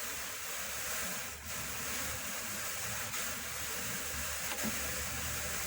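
Drum carder turning with fleece on it, a steady brushing hiss from the carding cloth with a low hum underneath.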